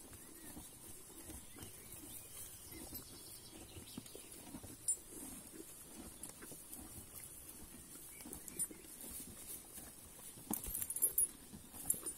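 A mule munching hay: soft, irregular crunching and rustling, with a short burst of sharper clattering taps near the end.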